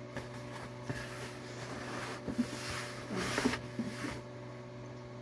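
Rustling and handling noises as items are dug out of a shipping package, loudest in a couple of short bursts in the middle, over a steady low hum.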